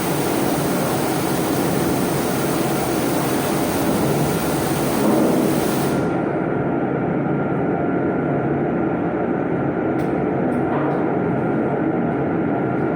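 High-pressure water jet hissing hard, cutting off suddenly about halfway through. A steady low rumble carries on under it and after it, with a couple of faint clicks near the end.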